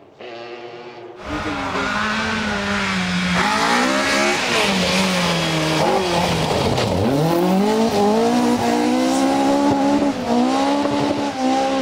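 Rally car engine at hard load, its note dropping over a few seconds as the revs fall, then climbing again as it accelerates, with tyre noise underneath. A quieter engine sound before a cut about a second in gives way to the louder car.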